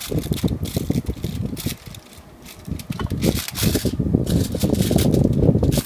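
Aluminium foil crinkling and crackling as it is folded and pressed around the rim of a leche flan mould, with low rubbing and handling noise. It eases off briefly about two seconds in, then comes back louder.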